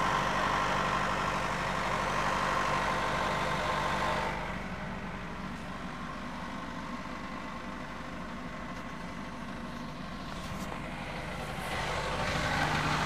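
Nissan Primera engine idling with a knock from the engine. The sound drops in level about four seconds in and comes back up near the end.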